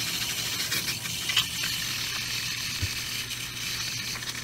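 Aerosol can of A/C evaporator foam cleaner discharging through a hose into a car's A/C condensate drain tube: a steady hiss as the foam is forced up into the evaporator.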